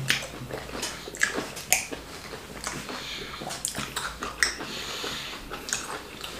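Eating sounds of a plantain fufu with ogbono and egusi soup mukbang: irregular wet clicks and smacks of mouths chewing and swallowing, several a second.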